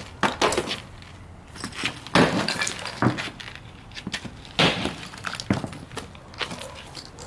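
A hand tool striking repeatedly into tree roots and soil, dug out by hand. It gives a series of sharp, irregular blows roughly a second apart.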